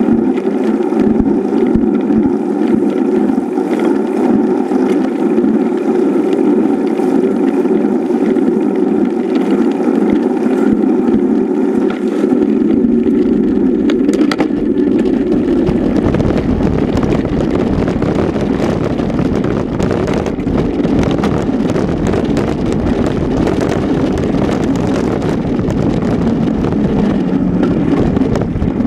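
Wind rushing over a mountain bike's action camera and rumble from the bike as it is ridden, a steady hum at first that turns rougher with more low rumble about halfway through.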